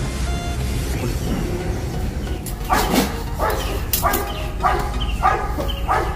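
A dog barking repeatedly, about one and a half barks a second, starting about three seconds in.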